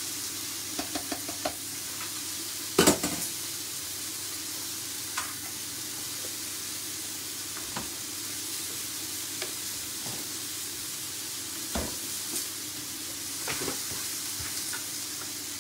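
Steak sizzling steadily in a frying pan, with a few light knocks and clinks; the loudest comes about three seconds in.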